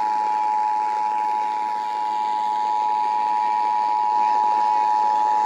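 Emergency Alert System two-tone attention signal: a steady dual-pitch tone sounding without a break over broadcast radio hiss. It is the alert tone that comes before an EAS message's spoken announcement, here a monthly test.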